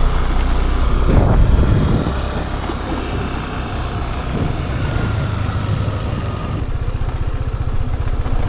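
Motorbike engine running while riding along; about two-thirds of the way through, the rushing noise drops away and the engine settles to a lower, even putter as the bike slows.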